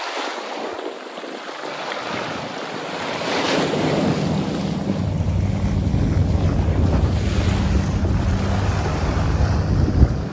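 Sea waves splashing and washing, with wind noise on the microphone. About four seconds in, a heavier low rumble joins and the sound grows louder.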